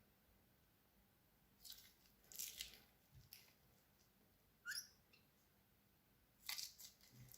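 Quiet crackling and crunching of crunchy slime squeezed in a plastic piping bag, in several short bursts that begin about a second and a half in, with one brief rising squeak near the middle.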